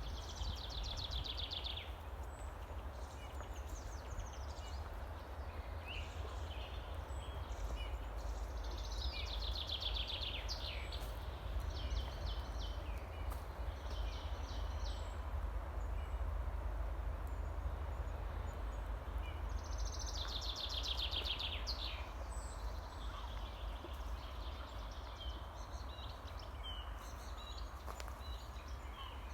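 Forest songbirds: one bird sings a short, fast, high trilled phrase about every ten seconds, and others chirp briefly between its phrases. Beneath the birds runs a steady low rumble.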